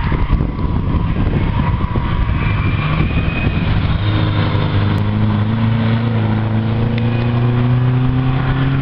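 A saloon race car's four-cylinder engine at high revs under load as it passes close by. Its note climbs slowly in pitch from about halfway through, after a rougher, noisier rumble in the first half.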